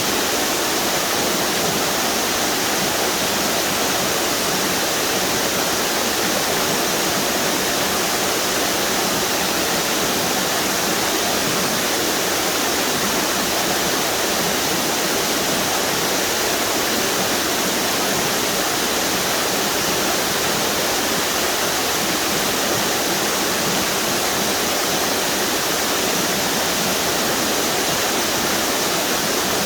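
River water pouring over a string of small waterfalls, a steady, even rushing.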